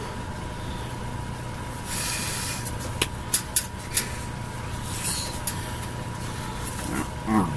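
Steady low electrical hum and hiss with a faint high tone, broken by four sharp clicks about three to four seconds in. Near the end a short voice sound slides down in pitch.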